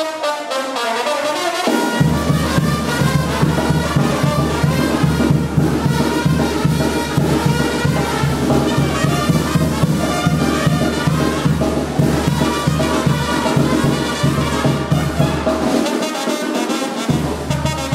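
Brass-band dance music over a heavy, steady bass beat. The bass drops out for about the first two seconds and again for about a second near the end.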